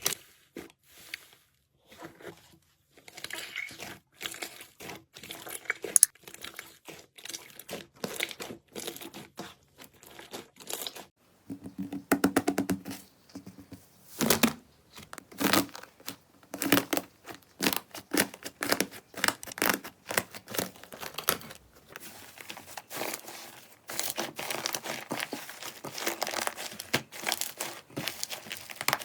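Slime being squeezed, stretched and poked, giving dense irregular runs of crackling pops and clicks, with a few brief quieter pauses.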